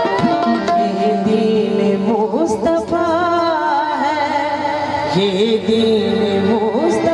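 Live devotional song with harmonium and tabla accompaniment: the harmonium's held notes come first, and a woman's voice enters about two seconds in, singing with a strong wavering vibrato.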